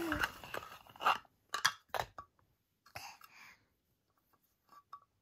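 Scattered knocks and clicks of toys being handled, a handful in the first three seconds and then quiet.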